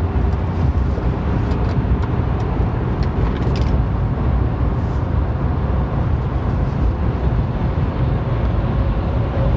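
Steady in-cab road and engine noise from a 2020 Chevrolet Silverado 1500 with the 3.0 L Duramax diesel cruising at highway speed, a low rumble under tyre and wind hiss, while its diesel particulate filter regeneration is under way.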